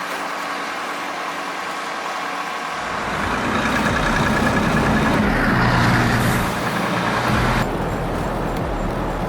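Heavy truck and machinery engines running. The sound changes abruptly about three seconds in, when a deeper, louder rumble comes in, and again near eight seconds.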